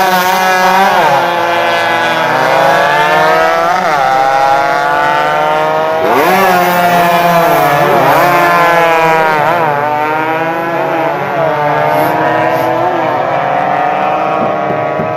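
Several two-stroke 115 cc racing motorcycles running at full throttle close by, their engines overlapping. The pitch repeatedly climbs and then drops sharply through gear changes and throttle lifts.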